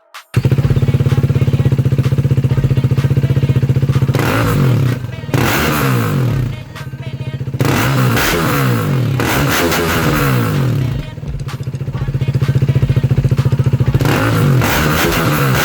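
KTM Duke 390's single-cylinder engine idling with a fast pulsing exhaust note, then revved several times, the pitch rising and falling with each blip. The owner calls this a bad exhaust sound.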